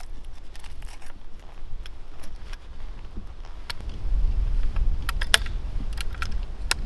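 Metal clicks and small rattles of a Swedish M1851 Kammerlader rifle's breech being loaded: a paper cartridge is pressed into the tilted-up chamber, then the chamber is swung down and locked, with several sharp clicks past halfway and one near the end. A low rumble comes in at about four seconds.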